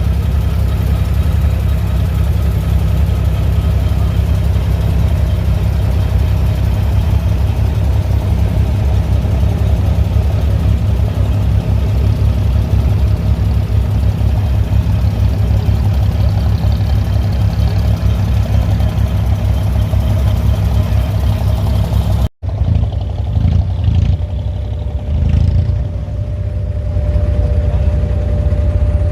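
Diesel engine of an abra water taxi running steadily with a deep hum. It cuts off abruptly about 22 seconds in, and after that a quieter engine sound goes on with a few uneven knocks.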